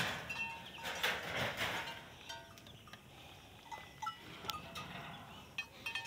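Goats moving about in a pen: a few scuffs and rustles on the dirt in the first two seconds, with scattered short high chirps and tinkles.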